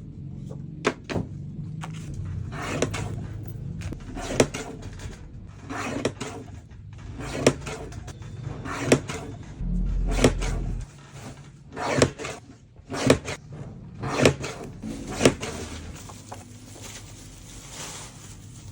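Paper cutter chopping through paper for a photobook: a sharp snap of the blade every one to two seconds, about a dozen cuts in all, with the cutting stopping near the end.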